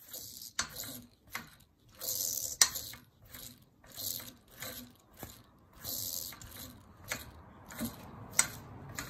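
Top main bearing of an Evinrude E-TEC 90 hp outboard's crankshaft spun by hand again and again, each spin a short hissing whirr, with a few sharp clicks. The bearing is noisy and is suspected to be faulty, the cause of the engine's vibration.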